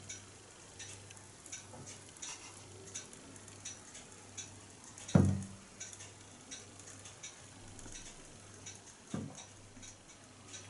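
Coil-engine pop-pop boat running quietly, with faint irregular ticking and crackling, two or three ticks a second. Two louder dull knocks come about halfway and near the end as the tinplate hull bumps the side of the bath.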